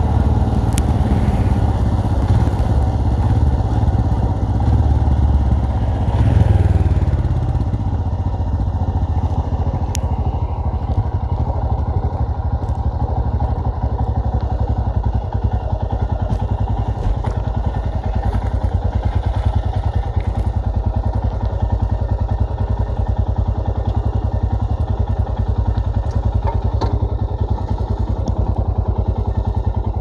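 Royal Enfield Himalayan's 411 cc single-cylinder engine running under way. It rises briefly about six seconds in, then eases back and settles into a low, steady beat, with a few sharp clicks scattered through.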